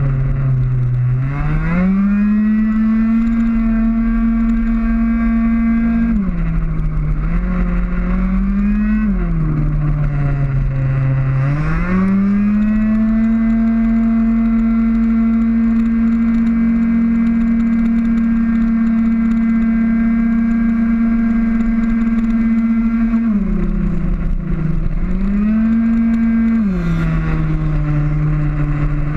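Two-stroke racing scooter engine heard from on board at full throttle: a steady, high engine note held down the straights. About five times the pitch drops as the rider backs off for a corner, then climbs straight back as he accelerates out.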